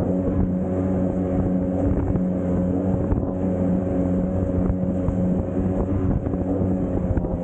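Jet ski engine running at a steady cruising speed, with water rushing past the hull and wind buffeting the microphone.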